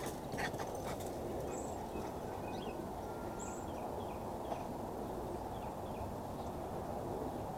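Steady low background noise outdoors, with three faint, brief high chirps like small birds and a few light ticks.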